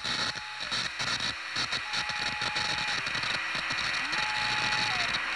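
A noisy song intro of crackling hiss with thin held whistling tones, three high ones each lasting under a second, the last sliding down near the end, plus a few lower ones and a short rising slide.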